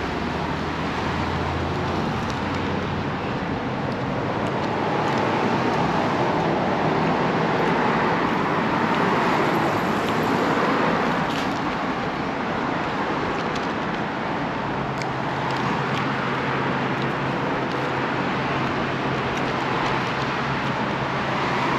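Steady road traffic noise: an even rush with a low engine hum underneath, which shifts slightly higher about fifteen seconds in.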